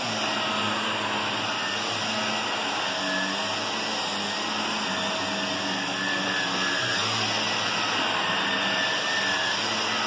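Shark upright vacuum cleaner running steadily while being pushed over carpet, a continuous motor-and-suction noise with small shifts in pitch.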